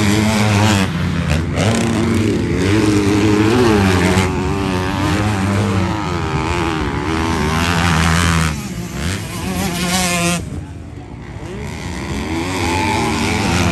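Motocross bikes racing, their engines revving up and down in pitch again and again as the riders work the throttle through jumps and corners. The sound drops back about two-thirds of the way through, then builds again.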